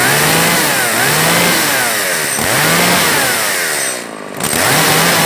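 Stihl MS180 two-stroke chainsaw engine running, its revs rising and falling about four times, with a brief dip near the end.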